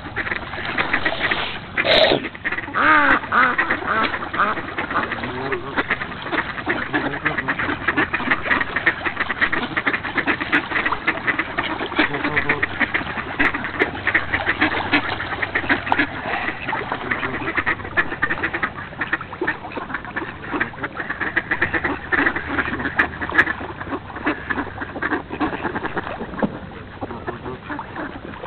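A large flock of mallards quacking non-stop, many calls overlapping into a continuous din, as they crowd and compete for food in a feeding frenzy.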